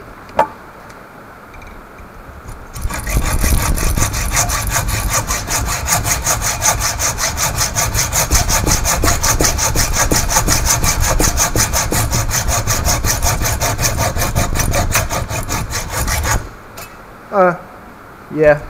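Hand hacksaw cutting through the metal canister of an airbag inflator held in a bench vise, in steady, rapid back-and-forth strokes that start about three seconds in and stop a couple of seconds before the end. Two brief squeaks follow in the pause.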